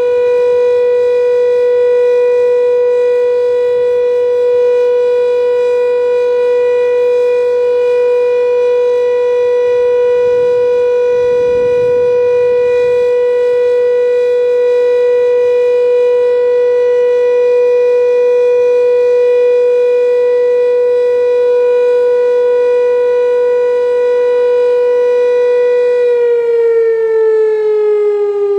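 Fire station siren sounding one long, steady, unbroken tone, then starting to fall in pitch near the end as it winds down. It is the continuous commemorative siren sounded for the anniversary of the Warsaw Uprising.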